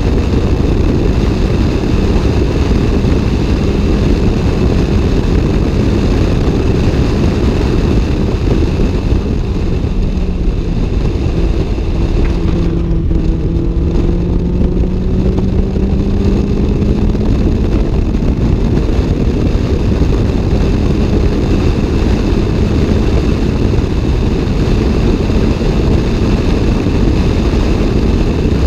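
Toyota AE86 Levin's 4A-GE twin-cam inline-four heard from inside the cabin, running hard at speed. The revs ease and drop about ten to twelve seconds in, then the pitch climbs slowly as the car pulls through a gear.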